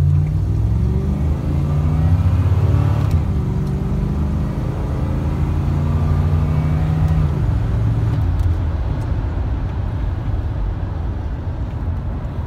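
1990 Chevy C1500 pickup accelerating hard from a standstill through its stock 700R4 automatic transmission, heard from inside the cab. The engine revs climb, drop at an upshift about three seconds in, climb again and drop at a second upshift about seven seconds in, then the engine note settles and eases.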